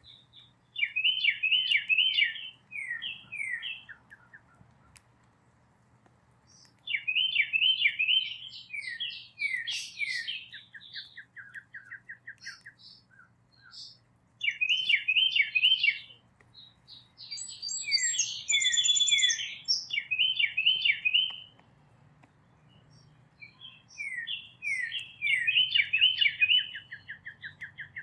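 A songbird singing repeated song phrases a few seconds apart. Each phrase is a run of quick, high, down-slurred notes, and some end in a fast trill.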